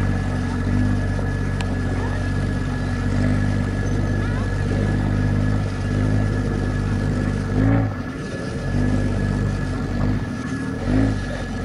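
Lifted 2002 Nissan Frontier pickup's engine pulling steadily under load as it crawls up a loose rocky hill, revving up briefly twice in the second half.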